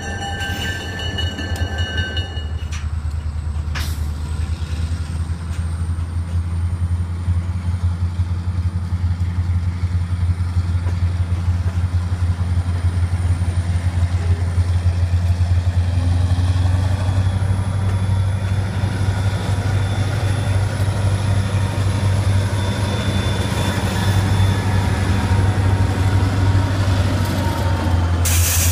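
Diesel locomotives of an EJ&E freight train running with a steady low engine rumble as the train rolls past. A grade-crossing bell rings for the first two seconds or so, and near the end the sound jumps to a louder rush as a locomotive passes close by.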